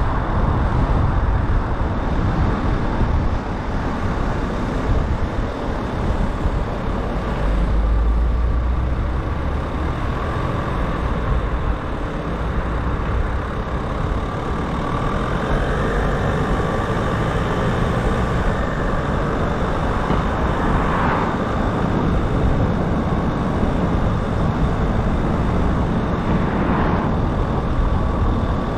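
A car driving on city streets: steady road noise from the tyres and engine, with a deeper rumble for a couple of seconds about a quarter of the way in.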